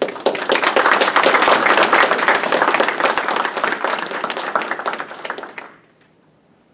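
Audience applauding at the close of a lecture. It starts at once, then thins out and stops about five and a half seconds in.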